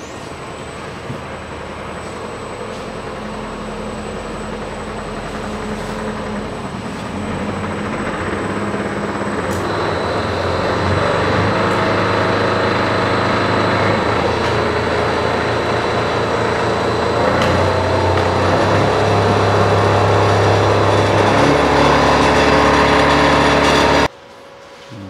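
Three-phase AC electric motor on a variable-frequency drive spinning the converted car's drivetrain forward with the wheels off the ground. The hum steps up and grows louder over the first ten seconds, then holds, and a steady high whine joins about ten seconds in. It is a bit noisy because the differential is hanging free, and it cuts off abruptly near the end.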